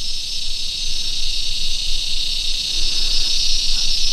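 Steady high-pitched insect chorus droning without a break.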